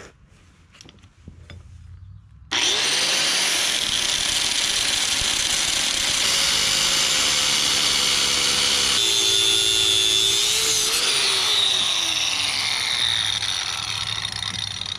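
Corded angle grinder with a cut-off wheel cutting through steel hydraulic cylinder rod. After a few faint handling clicks, the grinder starts abruptly about two and a half seconds in. It then cuts steadily, its pitch sagging slowly under load, and eases off near the end as the cut finishes.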